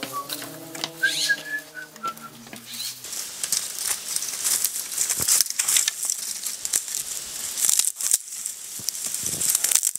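A short whistle-like melody that ends about two and a half seconds in, followed by continuous rustling and crackling noise.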